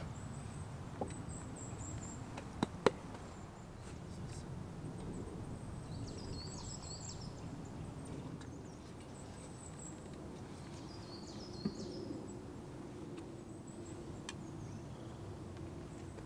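Quiet forest ambience with thin, high bird calls twice, and a few sharp clicks and knocks from a thermos and cups being handled, the sharpest about three seconds in.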